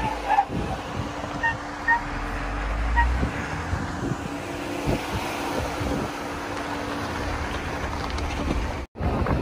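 Off-road Jeep driving slowly over bumpy slickrock: the engine runs with a low rumble, and the body and suspension knock repeatedly as it crawls over the rock.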